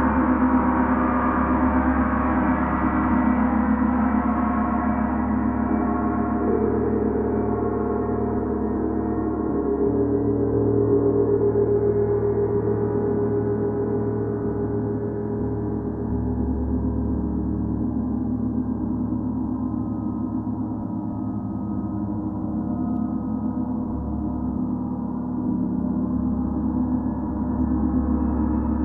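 Large Paiste Mercury planetary gong kept ringing by steady, light strokes of a soft felt mallet: a continuous, dense wash of overtones that swells and eases gently without ever dying away.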